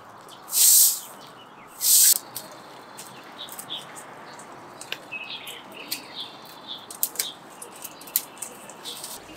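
Two short, loud hissing swishes in the first two seconds, then small birds chirping now and then with a few light clicks.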